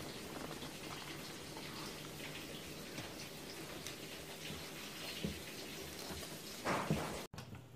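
Flour shaken from a bag and patted by hand onto raw liver in a ceramic bowl: faint soft rustling and a few light taps over a steady light crackle. A short, slightly louder handling sound comes near the end.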